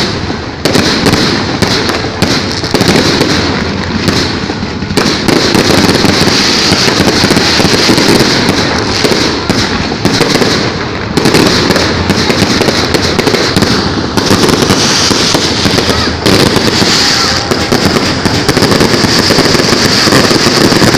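Aerial fireworks going off in a loud, near-continuous barrage of bangs, one burst overlapping the next.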